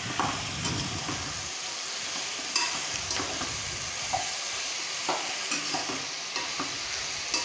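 A metal spatula stirring cauliflower florets through onions and tomatoes frying in oil in a pot, over a steady sizzle, with several short clicks and scrapes as it knocks against the pot's sides.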